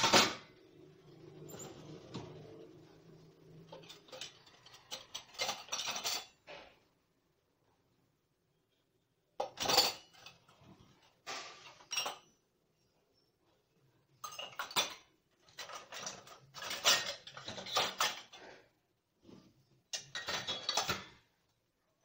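Stainless steel pots, plates and vessels clinking and clattering against each other and the wire racks of a dishwasher as they are handled. The clatter comes in bunches with pauses of a second or two between them. The loudest sound is a sharp knock right at the start.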